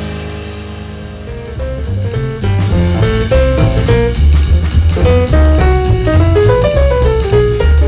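Background music: a jazz tune with drum kit, double bass and piano, the drums and melody coming in about a second and a half in after a fading chord.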